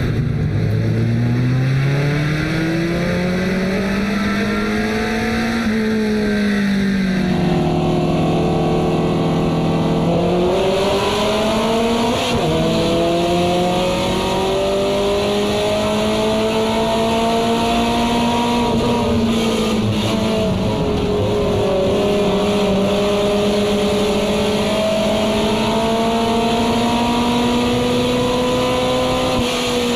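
Carbureted short-track race car engine heard from inside the cockpit at racing speed, its note rising and falling again and again as the car laps, with a few seconds of steady lower drone about a quarter of the way in.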